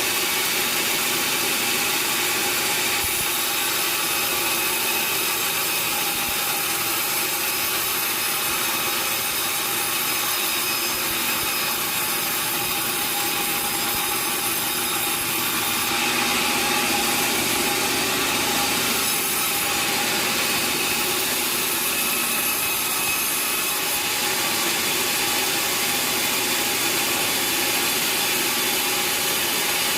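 Sawmill saw cutting through timber: a steady, continuous cutting noise with a faint machine whine in it, growing a little louder about halfway through.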